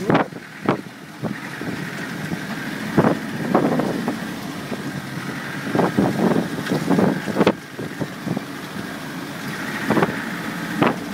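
A Land Rover driving offroad, heard from inside the cab: steady engine and road noise with repeated knocks and bangs as it goes over rough ground.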